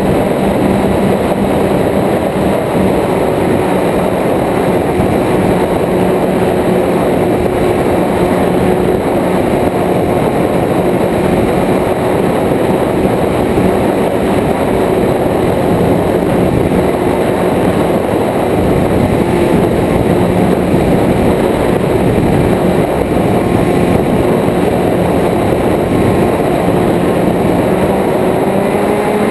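Propeller engine of a small aircraft running steadily in flight, mixed with the rush of air over a wing-mounted camera; the engine's pitch rises a little near the end.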